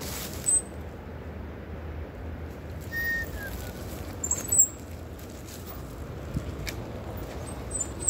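Bicycle rolling along a dirt trail, a steady low rumble of tyres and handlebar-mounted phone handling noise, with a few short high chirps over it.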